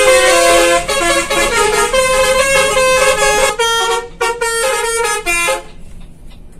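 Telolet bus horn: several horn tones sounding together and changing pitch in steps to play a short tune. About three and a half seconds in it breaks into separate short blasts, then stops about two seconds later.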